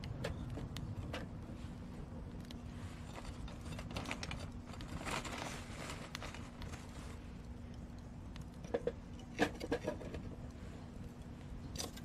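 Wood and charcoal fire crackling with scattered small pops in a thin steel mini charcoal stove. A little past halfway come a few sharper knocks as a lump of charcoal is set onto the fire.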